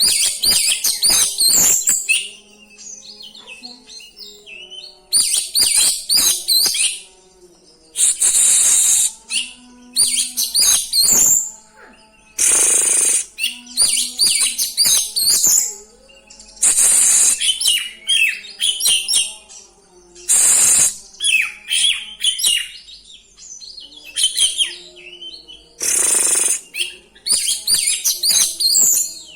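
Oriental magpie-robin (kacer) singing loud, rapid, varied song phrases with mimicked fill notes. The phrases come in bursts of a second or two with short pauses between.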